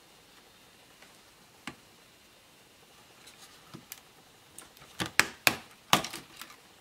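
Laptop parts being handled and pried apart: a few faint isolated clicks, then a quick run of sharp plastic clicks and taps about five seconds in.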